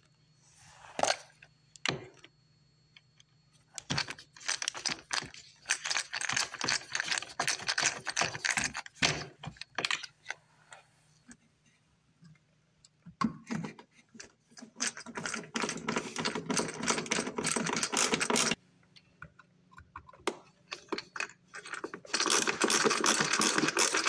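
Close handling noise: rattling and clicking in three bursts of several seconds each, with quiet gaps between them.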